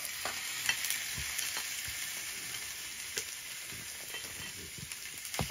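Pork sizzling as it stir-fries in perilla oil in a pot, with the scattered clicks and scrapes of a spatula stirring it.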